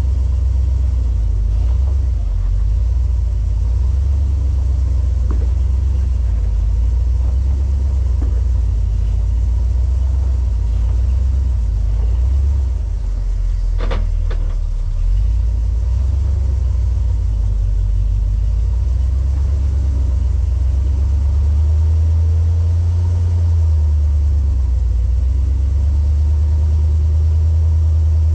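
Off-road 4x4 vehicle's engine and drivetrain rumbling low and steady at crawling pace, with a single sharp knock about halfway through.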